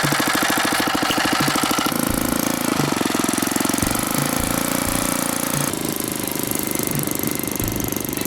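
79cc single-cylinder engine of a homemade belt-drive motorized bicycle running under load in first gear, a rapid steady pulsing putter. Its note shifts about two seconds in and again near six seconds.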